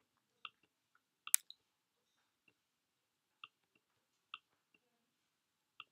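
Computer mouse clicking: about half a dozen short, sharp clicks at irregular spacing, the loudest and sharpest a little over a second in.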